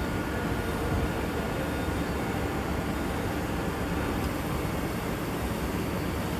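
Steady mechanical drone of factory machinery running, an even rumble and hiss with a faint steady whine.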